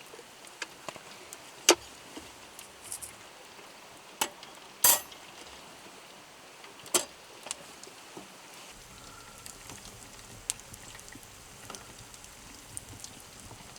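Wood campfire crackling, with sharp pops at irregular moments, over the steady rush of a stream.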